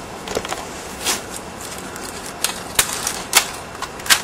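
A series of irregular sharp clicks and snaps, about six in four seconds, the loudest near the end.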